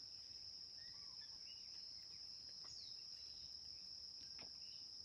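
Faint, steady high-pitched chirring of crickets, with a few faint short chirps here and there.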